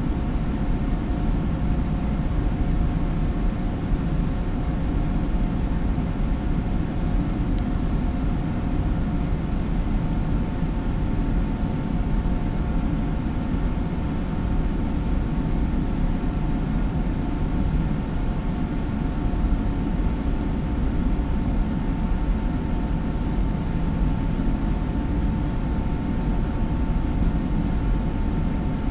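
Steady mechanical drone inside a large indoor hall: a low rumble with a hum of several steady tones over it, unchanging throughout.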